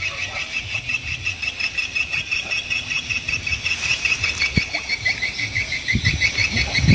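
Rapid, evenly pulsing high-pitched chirping from calling animals, about five pulses a second. A few low sloshes of water come near the end.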